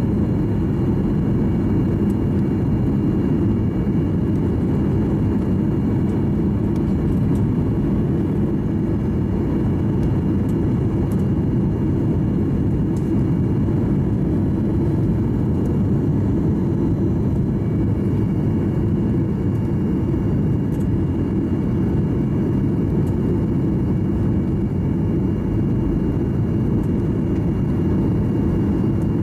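Steady low rumble of engine and airflow noise heard inside the cabin of a Boeing 737-800 on approach with its flaps extended, its CFM56-7B turbofans running evenly with no change in level.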